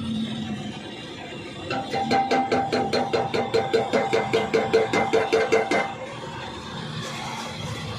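Rapid, even light hammer taps on metal, about five a second for some four seconds, each one ringing, starting about two seconds in.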